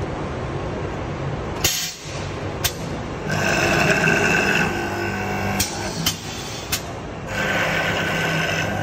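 MD-104 automatic door-handle lock machine at work. Its spindle motor whines loudly as the cutter routs into a wooden workpiece, once about three seconds in and again near the end. Sharp clicks from its pneumatic clamps and slides come in between.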